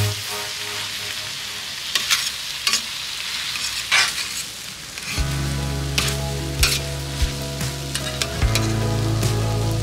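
Noodles sizzling on a hot flat griddle plate while a metal spatula stirs and tosses them, with a few sharp scrapes and taps of the spatula on the plate. Background music comes in about halfway through.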